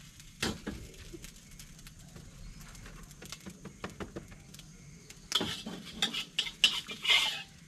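Metal spatula clanking and scraping against a large wok of fried rice. A sharp clank comes about half a second in, then a few light taps, then a run of quick scraping strokes from about five seconds in.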